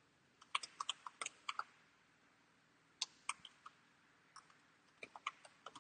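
Faint keystrokes on a computer keyboard, typing in short quick bursts with pauses between.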